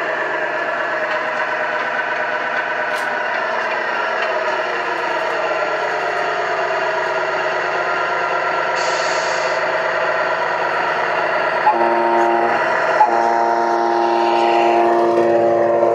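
Tamiya MFC-01 multi-function unit playing its simulated semi-truck diesel engine sound through its speaker as the 1/14 King Hauler drives. There is a short air-brake hiss about nine seconds in, then near the end a truck horn sounds twice, the second blast long.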